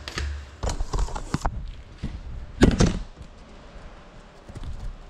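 A series of sharp clicks and knocks, with one loud thump about two and a half seconds in.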